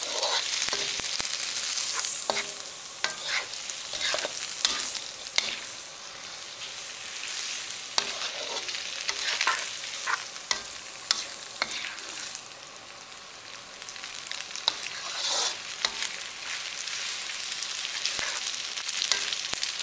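Flat rice noodles with shrimp and pork sizzling in a hot wok while a spatula stirs and tosses them, its many quick scrapes and knocks against the pan sounding over a steady hiss.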